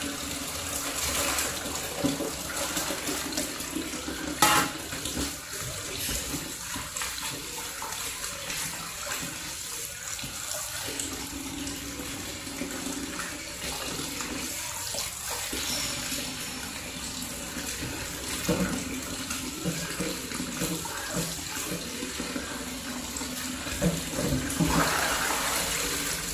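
Kitchen tap running into a stainless steel sink while hands rinse cut catfish pieces under the stream, the water splashing as it is worked. One sharp knock comes about four and a half seconds in.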